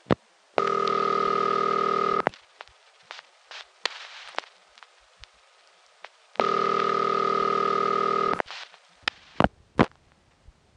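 Telephone ringback tone over a phone line calling a phone company test number: two rings, each about two seconds of buzzy tone, about four seconds apart, with faint clicks on the line between them. Near the end come several sharp clicks, the sound of the line being picked up and hung up over and over.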